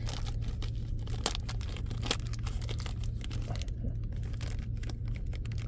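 A baseball card pack's wrapper being torn open with the teeth, with irregular crinkling, crackling and tearing close to the microphone. A steady low hum runs underneath.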